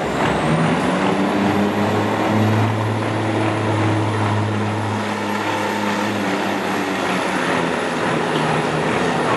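A semi truck's diesel engine is running under heavy load as it drags a weight-transfer pulling sled. The low engine note is strongest in the middle and eases a little after about six seconds. A thin high whine rises in the first second and then holds.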